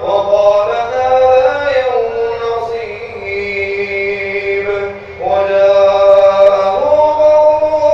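A man reciting the Quran in a melodic chant, drawing out long held notes that step up and down in pitch, with a brief pause for breath about five seconds in before the next phrase.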